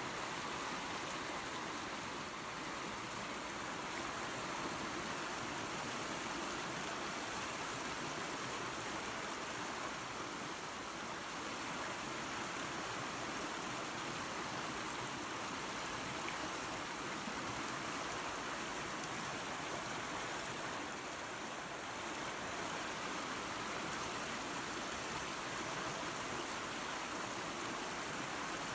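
Creek water running over a small waterfall: a steady, even rush with no breaks.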